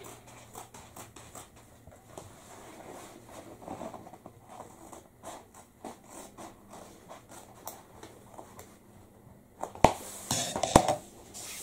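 Stiff roller-blind fabric rustling and scraping against the floor as it is handled, with many small scratchy clicks, then two sharp clicks about ten seconds in.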